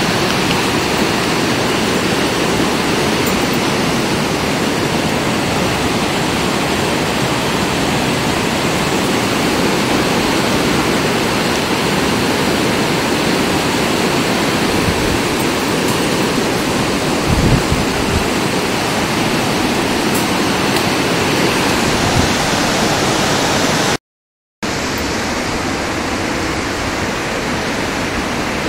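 A loud, steady rushing noise, even from low to high. There is a brief low thump about 17 seconds in, and the sound cuts to silence for about half a second near the end.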